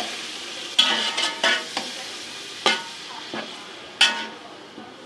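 Chicken pieces and peas frying in ghee in a large pot, sizzling steadily, while a utensil stirs them and scrapes and knocks against the pot about half a dozen times.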